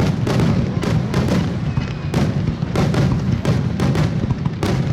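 Rapid-fire fireworks barrage: shell bursts booming and cracking about three or four times a second, over a continuous low rumble of overlapping explosions.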